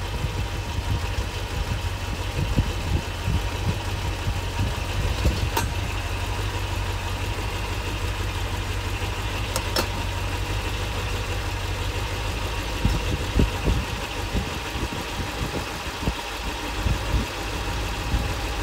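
1962 Plymouth 361 V8 idling steadily while the distributor is twisted to adjust the ignition timing and smooth out the idle. Two faint clicks come through about a third of the way in and again about halfway.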